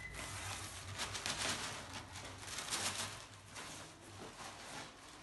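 Thin paper kites and cardboard packaging rustling and crinkling irregularly as they are handled, over a low steady hum.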